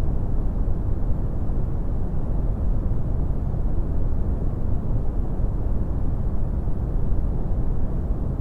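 Brown noise: a steady, deep rumbling hiss with most of its energy in the low end, unchanging throughout.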